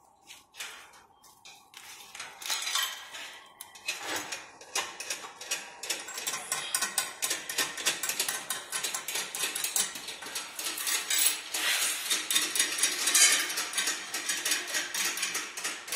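Rapid, irregular clinking and rattling of metal and plastic parts, sparse at first and then dense and continuous from about two seconds in.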